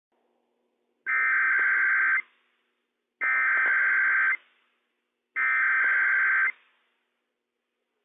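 Emergency Alert System SAME header on NOAA Weather Radio: three bursts of digital data tones, each about a second long and about a second apart. They are the coded header that opens a Required Weekly Test.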